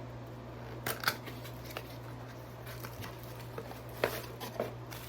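Unboxing packaging being handled and opened: a few short, sharp clicks and crinkles, in a cluster about a second in and another about four seconds in, over a steady low hum.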